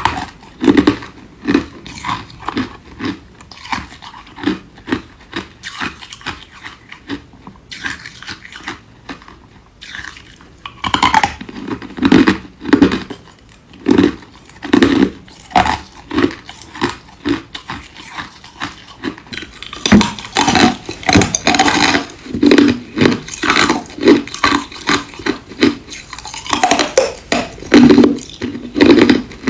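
Ice being bitten and chewed close to the microphone: a long run of sharp crunches and cracks, a few every second. It is quieter for a few seconds about a third of the way in, then louder and denser toward the end.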